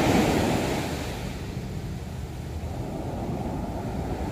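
Sea surf breaking and washing up a sandy beach: a steady rush of water, loudest at the start and ebbing away, from waves the local calls very big.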